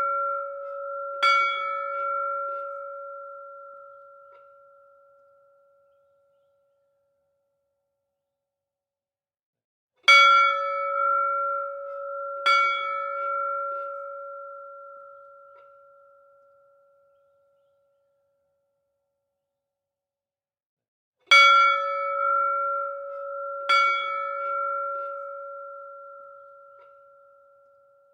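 A temple-style bell struck in pairs, two strikes a couple of seconds apart, each pair ringing with a clear two-note tone and fading out over about five seconds. A few seconds of silence follow each pair before the next one, in a regular repeating pattern.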